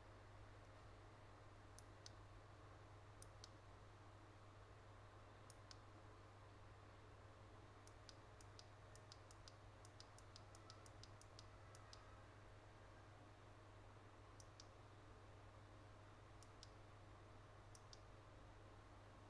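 Faint, sharp small clicks over a steady low hum: a few scattered clicks, then a quick run of about four a second for several seconds near the middle.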